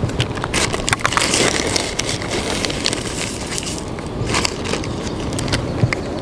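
Plastic zip-lock bag crinkling and rustling as it is handled and opened, an irregular run of sharp crackles.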